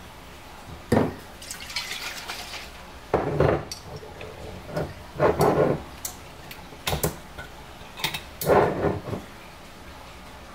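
Clinks and knocks of kitchen items being handled: a glass swing-top bottle and metal measuring spoons knocking against each other and the counter, about eight separate sounds spread out with short pauses between.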